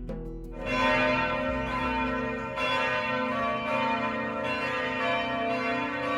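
Church bells ringing, a new stroke coming about every two seconds while the earlier ones ring on.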